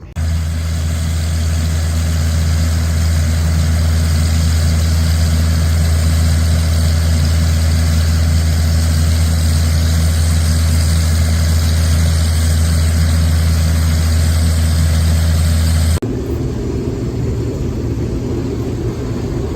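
Farm machine's diesel engine running at a steady speed, a deep even drone. About sixteen seconds in it cuts suddenly to a different, slightly quieter engine sound.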